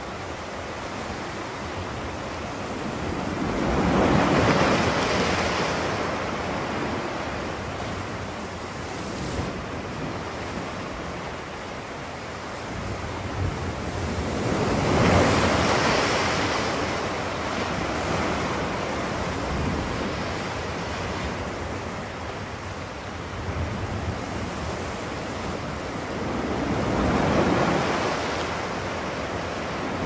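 Waves washing onto a shore, the surf swelling and easing three times at an even pace over a steady background wash.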